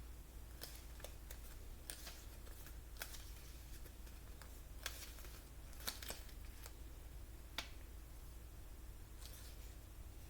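Faint paper handling: pages of a tarot guidebook being leafed through, giving a scattered run of short crisp rustles and ticks, a few sharper ones about halfway through and near 7.5 seconds.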